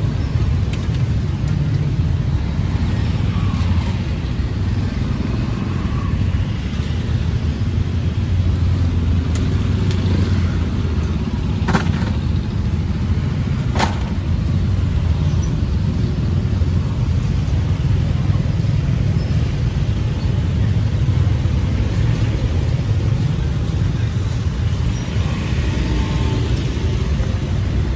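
Busy street ambience: a steady low traffic rumble with faint voices in the background. Two sharp knocks come about twelve and fourteen seconds in.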